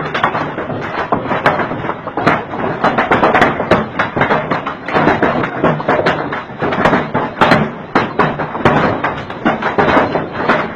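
Heavy rain pelting down as a loud, continuous hiss packed with dense, irregular sharp hits.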